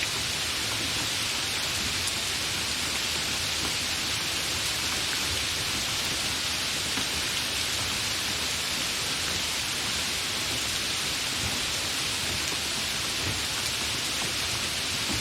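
Light rain falling: a steady, even hiss of rain with no distinct drops or breaks.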